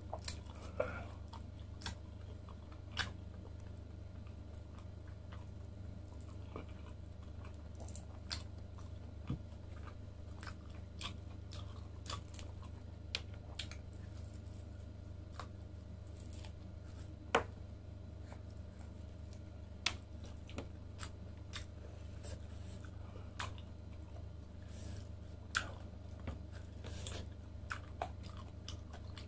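A person chewing and biting grilled lamb chops off the bone, with irregular sharp crunches and mouth clicks, over a steady low hum.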